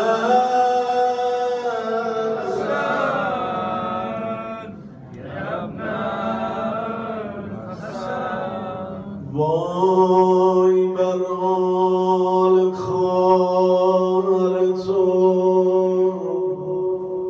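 A man's solo voice chanting a Shia mourning elegy (maddahi) into a microphone, drawing out long notes. One phrase slides in pitch over the first few seconds; after a short break, a long, steady held note starts about nine and a half seconds in.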